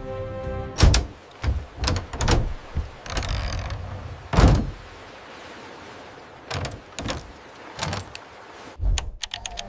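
Music that stops under a second in, then a series of irregular thumps and knocks, the loudest about four and a half seconds in, ending in a fast run of clicks.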